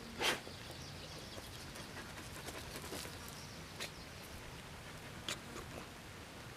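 A dog sniffing with its nose down in a mouse burrow in loose soil. One short, loud puff comes just after the start, and two faint clicks follow later.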